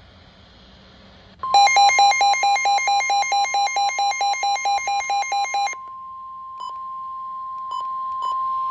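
NOAA Weather Radio's steady 1050 Hz warning alert tone, starting about a second and a half in and running on. For its first four seconds it is overlaid by rapid electronic beeping, about five beeps a second. The tone signals that a warning message is about to be read.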